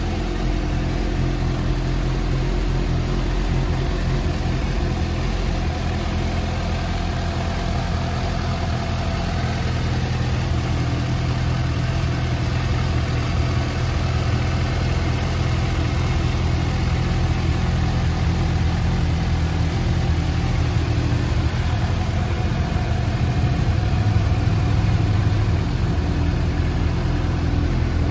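Suzuki GSX-S750 inline-four engine idling steadily, getting a little louder near the end.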